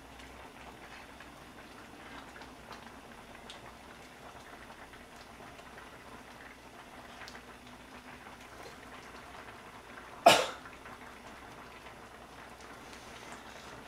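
Pot of clam noodle soup simmering on a gas stove, a steady bubbling hiss with a few faint clicks. About ten seconds in comes a single loud cough.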